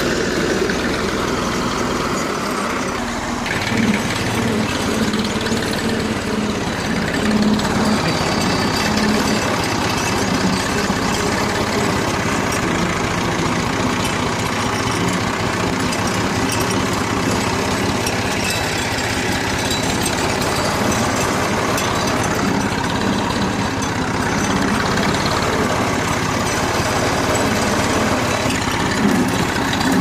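A farm tractor's engine running steadily, with an even drone throughout.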